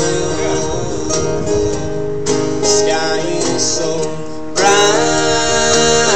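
An acoustic band playing a country-style song, led by a strummed acoustic guitar. About four and a half seconds in, it swells louder as new notes enter.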